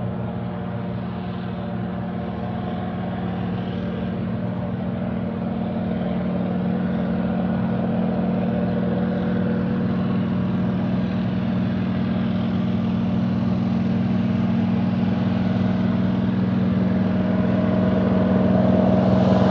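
Floatplane's piston engine and propeller droning at a steady pitch, growing gradually louder as the plane comes closer.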